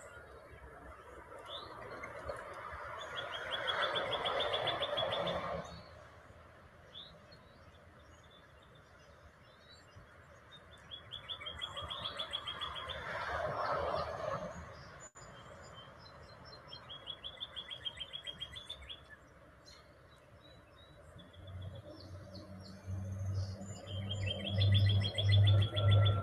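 Small songbird singing a fast, high trill, repeated about four times. Beneath the first two trills a soft rushing noise swells and fades, and a low steady hum comes in near the end.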